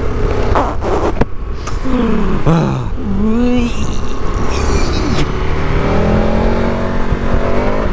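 KTM 1290 Super Adventure's V-twin engine under way, its pitch dipping and rising as the throttle is rolled off and on, then climbing steadily near the end as the bike pulls. Wind rumbles on the microphone, with a few short knocks in the first couple of seconds.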